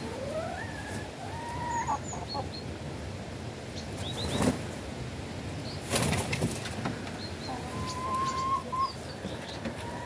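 Chickens in a yard calling. A drawn-out call near the start rises in pitch, and another steady call comes near the end, with short high chirps in between. Two loud flurries of wing flapping come around the middle.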